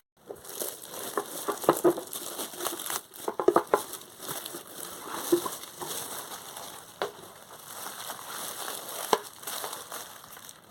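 Packaging being opened and handled during an unboxing: crinkling and crumpling with scattered sharp clicks and crackles, the busiest stretch in the first four seconds.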